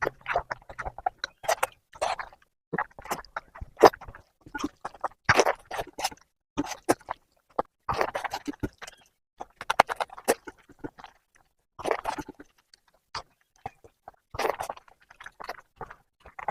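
Close-up wet chewing of oily mutton fat curry and egg, with lip smacks and irregular short clicks and squishes between mouthfuls.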